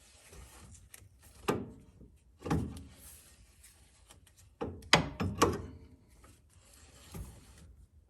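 Several separate knocks and clunks of tools and metal parts being handled during work on a steering bellcrank joint, two of them close together about five seconds in.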